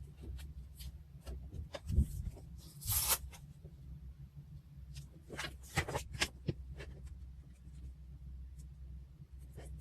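Close-up desk sounds of paper and stationery being handled: light rustles and taps, a short scratchy tearing or peeling sound about three seconds in, and a quick run of sharp ticks a couple of seconds later, over a steady low hum.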